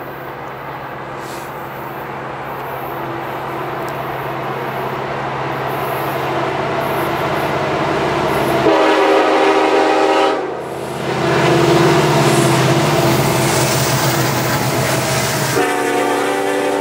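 CN freight train led by SD70M-2 diesel locomotives approaching and passing, engine and rail noise growing steadily louder. The lead unit's Nathan K5LLA five-chime air horn sounds a blast of about a second and a half about nine seconds in, and a second blast starts near the end as the covered hopper cars roll by.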